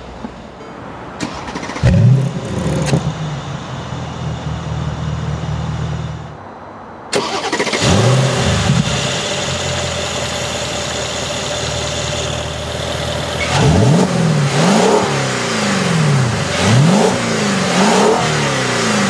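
Mercedes-Benz SLK55 AMG's 5.5-litre V8 starting with a quick flare of revs and settling into an idle. About seven seconds in the sound jumps louder, with another flare of revs and then a steady idle, and four quick throttle blips, each rising and falling, come in the last five seconds.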